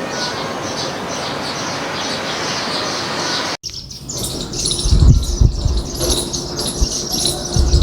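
Small birds chirping again and again over a steady hiss. About three and a half seconds in, the sound cuts abruptly to a clearer run of high chirps, with a few low thumps in the second half.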